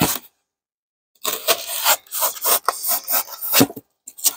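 Expanded polystyrene foam board being trimmed to size by hand: a run of quick, rough rasping strokes starting about a second in and lasting about two and a half seconds, with a brief scrape at the start and another near the end.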